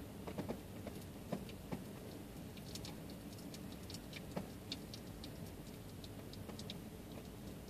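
Faint, scattered small ticks and clicks over a low background hum as water is drained off cooked spaghetti in a steel cup.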